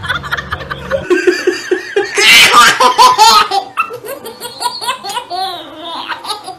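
Baby laughing hard in repeated fits of belly laughs from about a second in, loudest a second or so later.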